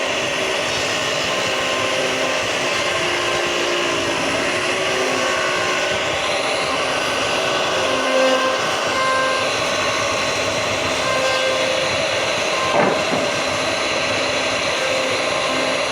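CNC router machining wood: steady spindle and cutting noise, with short whining tones now and then as the machine's axes move.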